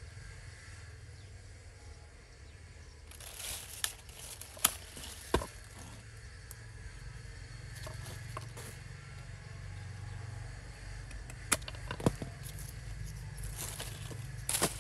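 Hand pruning shears snipping through a woody branch, several sharp clicks spread over the stretch, with rustling of leaves and handling noise between them over a steady low hum.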